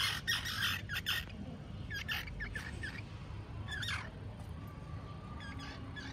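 Baby squirrels squeaking and chirping in short high calls, a few of them falling in pitch, with scratchy clicks in the first second.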